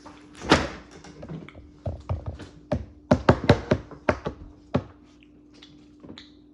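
A loose run of sharp taps and knocks, a quick cluster of them in the middle, over a faint steady hum.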